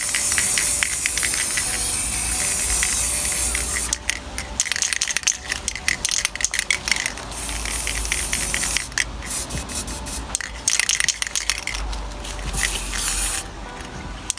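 Aerosol spray paint can hissing: one long spray, then a run of short, choppy bursts, a longer spray in the middle, more short bursts, and a last spray near the end.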